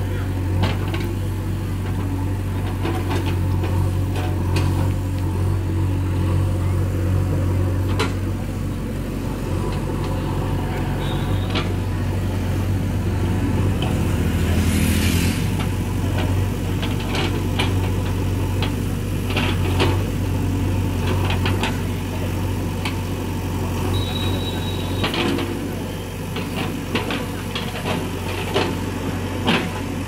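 JCB 3DX backhoe loader's diesel engine running steadily while its backhoe bucket digs through earth and broken concrete, with scattered knocks and scrapes of the bucket against concrete and stone.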